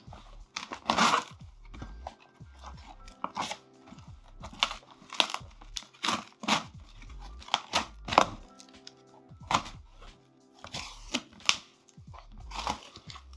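Thick cardboard packaging being torn and ripped open in a dozen or so irregular bursts, over soft background music.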